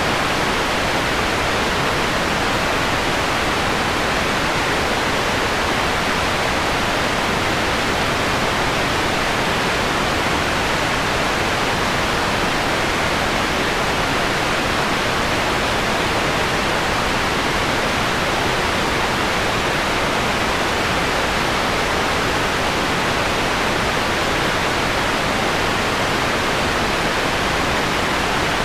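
Steady hiss of electronically generated white noise, filtered so the highest frequencies are rolled off, giving a softened, mellow tone.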